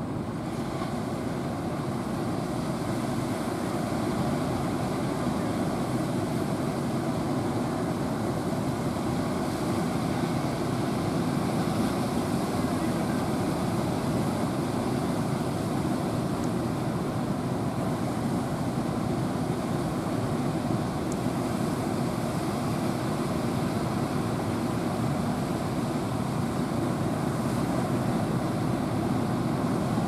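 Rough surf breaking in a steady rushing roar, with wind buffeting the microphone.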